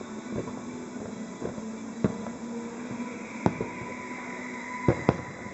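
Aerial firework shells bursting: four sharp bangs, the last two close together near the end, over steady background music.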